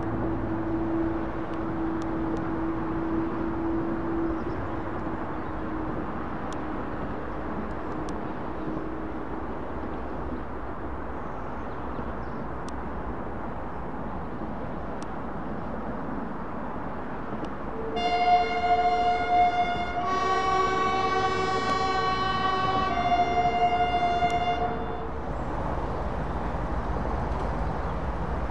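Diesel locomotive horn sounding for about seven seconds, switching between two chords (high, lower, then high again), over the rumble of a diesel-hauled passenger train on the move. Earlier, a steady engine drone fades away.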